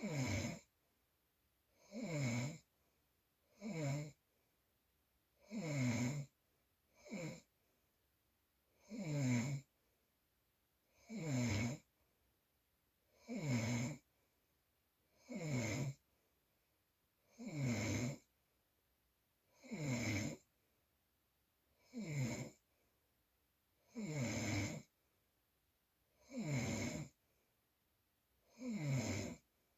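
Loud snoring: a short snore about every two seconds, each dropping in pitch, with near silence between breaths.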